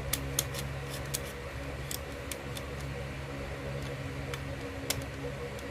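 Scattered light clicks of screws and a screwdriver against an electrical outlet and its box while the screws are tightened, irregular and a second or so apart, over a steady low hum.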